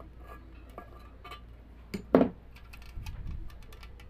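Tools, wire and a tin can being handled on a plastic tarp: light clinks and clicks, with a loud double knock about two seconds in.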